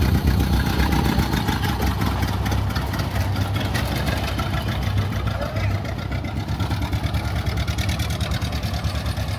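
1929 Ford Model A's four-cylinder engine running steadily under load as the car drives off through soft sand.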